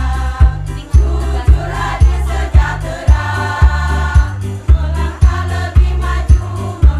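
Women's choir singing in harmony over an accompaniment with a steady, heavy bass beat, about two beats a second.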